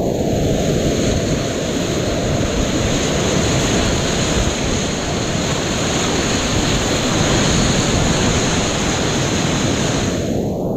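Whitewater rapids rushing loudly and steadily around a kayak as it runs down the river.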